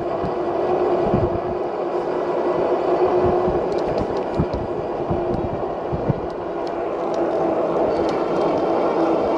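Lectric XP e-bike riding at a steady speed: a constant hum from the hub motor and fat tyres on the road, with wind buffeting the microphone in irregular gusts.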